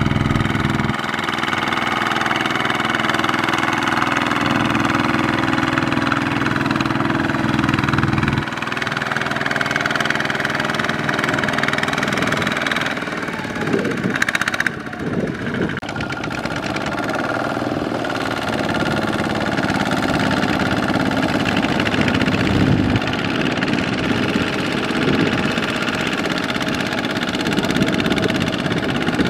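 Two-wheel walking tractor's single-cylinder diesel engine running steadily under load while hauling through mud. Its tone changes abruptly a few times, about 1 s, 8 s and 15 s in.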